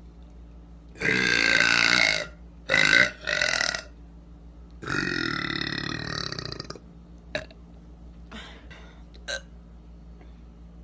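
A woman burping loudly several times: a long burp about a second in, two short burps right after, then another long, drawn-out burp lasting about two seconds. A few faint clicks follow.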